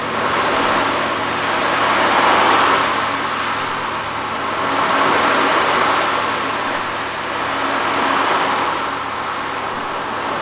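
Ocean drum rocked back and forth, its beads rolling across the head in a surf-like wash that swells and ebbs about every three seconds. A Paiste gong's low hum keeps ringing faintly underneath.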